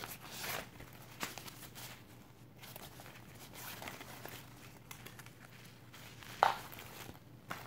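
Rustling and scuffing of a quilted fabric wallet being pushed into the zippered compartment of a quilted crossbody bag, its paper hang tag crinkling. One sharp knock about six and a half seconds in is the loudest sound.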